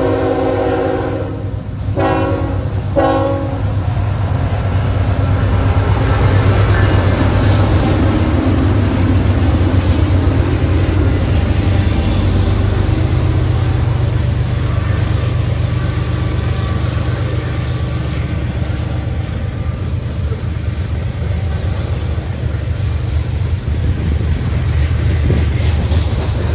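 Diesel locomotive horn sounding a long blast that breaks off about two seconds in, then two short blasts. Then GE diesel freight locomotives pass close by with a steady low engine drone, followed by loaded coal hopper cars rolling over the rails.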